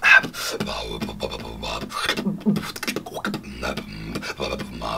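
Solo human beatboxing: a rhythmic vocal beat of mouth-made percussive hits, opening with a loud hit, with a few short low pitched notes a little past the middle.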